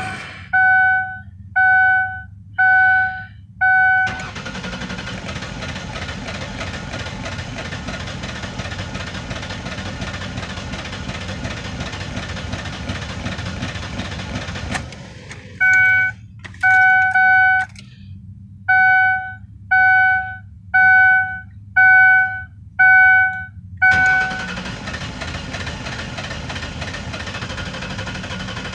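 A car's dashboard warning chime beeping about once a second, then the 2004 Ford Taurus's 3.0 L V6 cranking steadily on the starter for about ten seconds without firing. The chime and a second long crank follow. It is a crank-no-start condition.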